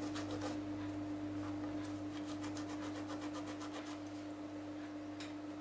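A steady low electrical hum, with faint light scratches and taps in short runs as fingers handle small parts on a plastic tablet frame.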